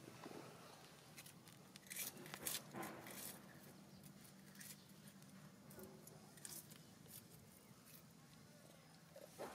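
Near quiet: a few faint rustles and scrapes, bunched about two to three seconds in, over a low steady hum.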